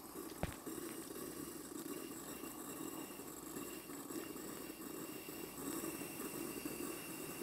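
Steady roar of a plumber's blowtorch burning in the firebox of a live steam model of the locomotive 'Russell', with its steam blower hissing and sputtering wet steam up the chimney while the boiler is still at low pressure. One sharp click about half a second in.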